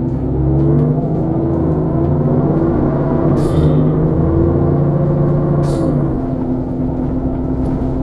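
Enviro 400 Trident double-decker bus's diesel engine heard from the upper deck, pulling hard with its note climbing and shifting, then easing to a steadier lower drone about six seconds in. Two short hisses come a few seconds in.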